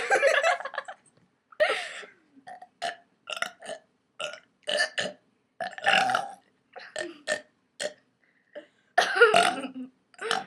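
Girls burping over and over: a run of short burps with a few longer ones, the loudest about nine seconds in.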